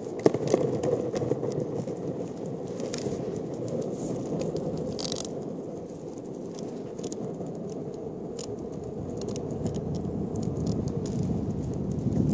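Longboard wheels rolling over asphalt: a steady rumble with scattered small clicks and rattles, growing louder near the end.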